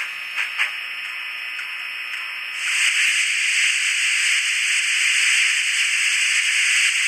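Sound decoder of an N-scale DCC steam locomotive playing through its tiny speaker: a few light clicks in the first second, then, about two and a half seconds in, a loud, steady steam hiss starts suddenly and keeps going, typical of the decoder's blowdown sound.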